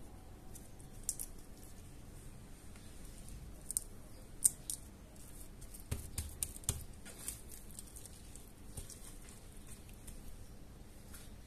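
Hands rubbing and pressing a spice rub into a slab of raw meat on a plastic cutting board: quiet wet squishing broken by scattered sharp clicks and small smacks, with a cluster of them with soft thumps around six seconds in.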